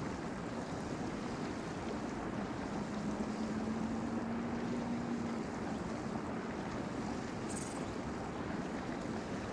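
Steady outdoor rush of wind and water noise, with a faint steady hum for a few seconds in the middle and one brief high tick near the end.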